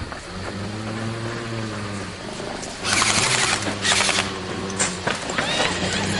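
An airsoft gun firing rapid full-auto bursts: a dense rattle of shots about three seconds in, lasting over a second, then shorter bursts. Before it there is a steady low hum.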